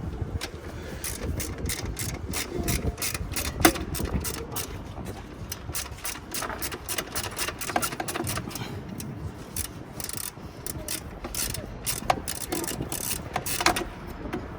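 Ratchet wrench clicking in repeated short strokes as a bolt is worked loose, with an occasional sharper knock of metal on metal.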